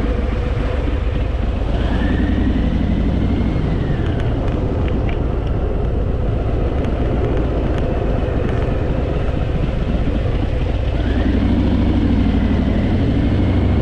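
Harley-Davidson Fat Boy's V-twin engine running on a ride through tight mountain bends, under steady wind rush. The engine note swells twice, about two seconds in and again near the end.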